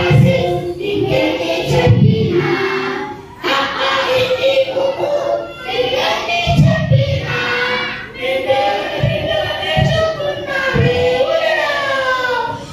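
A group of voices singing a song together in chorus, with a few short low thumps underneath.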